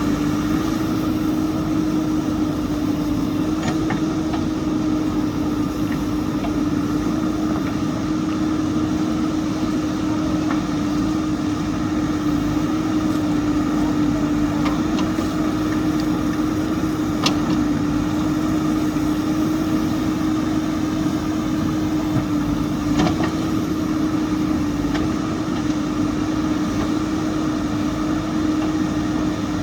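JCB backhoe loader's diesel engine running steadily at constant speed, with an unchanging whine over the engine noise and a couple of short knocks.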